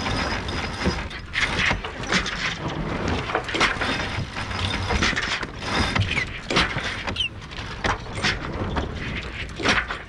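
Yacht's sheet winch being cranked with a winch handle while the headsail is sheeted in on a tack, its pawls clicking in quick irregular runs.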